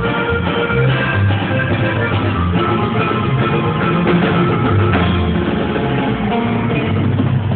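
Norteño band playing a corrido live: an instrumental stretch with a moving bass line, sustained melody notes and drums, without singing.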